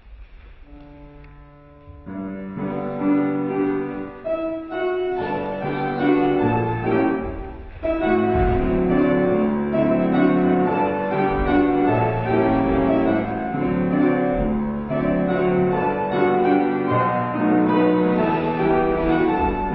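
Piano playing a ballet-class accompaniment: a few soft held notes, then the melody comes in about two seconds in, growing fuller and louder from about eight seconds in.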